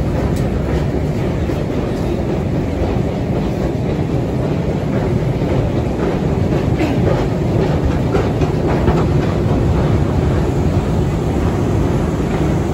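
Metro escalator running: a steady low mechanical rumble with a few faint clicks over it, mixed with the hubbub of a crowd riding down.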